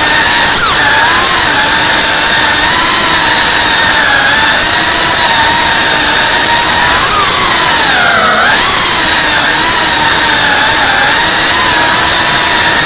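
High-pitched whine of a tiny whoop FPV drone's motors and propellers, its pitch wavering up and down with the throttle and dipping briefly about eight seconds in.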